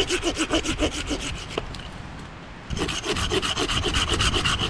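Folding hand saw cutting through wood on a fallen tree in quick, even back-and-forth strokes. The sawing stops for about a second partway through, then starts again at the same pace.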